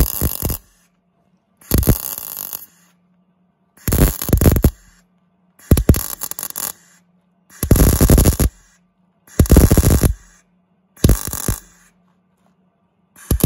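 MIG welder laying short stitch welds on a steel patch plate: about eight bursts of crackling arc, each about a second long, with short pauses between them and a faint low hum in the gaps.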